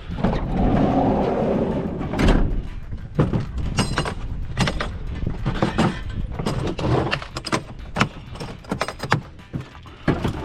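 Irregular knocks and clunks, many sharp hits spread through the stretch, with a heavier rumbling clatter in the first couple of seconds.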